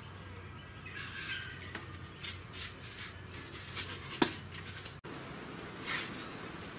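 Light handling noises: short scrapes and squeaks of a polystyrene foam sheet and a plastic welding helmet being handled, with one sharp click a little after four seconds in.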